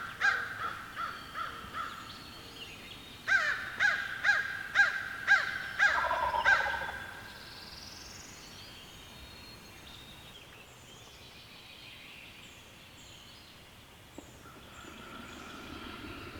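Crow cawing in two runs of repeated caws, about two a second: the first run fading out, the second louder, a few seconds in. Faint birdsong follows.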